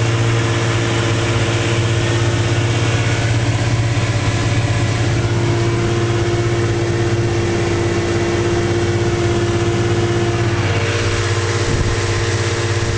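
1956 Johnson 30 HP Javelin two-cylinder two-stroke outboard motor running steadily at cruising speed, with wind and rushing water from the boat's motion.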